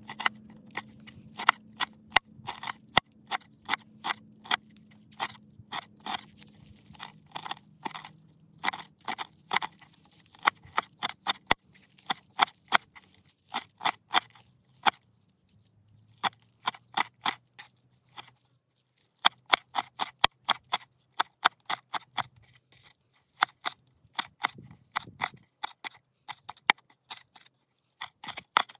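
Kitchen knife chopping fresh dill and green onions on a wooden cutting board: a run of sharp, crunchy chops, a few a second, with a couple of brief pauses.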